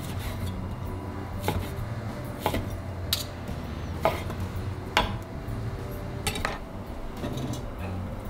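Chef's knife chopping cooked beef on a wooden cutting board: about seven sharp, irregularly spaced knocks of the blade striking the board.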